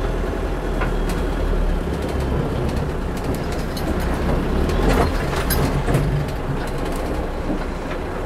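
Toyota FJ40's 15B-T four-cylinder diesel engine running under load at crawling speed in low-range four-wheel drive over rough ground. Scattered knocks and rattles come through, bunched in the middle and loudest about five seconds in.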